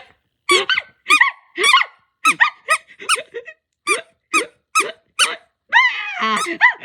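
A string of short, high-pitched squeaks, about two a second, voicing a toy character's hiccups. Near the end, a longer wavering squeal.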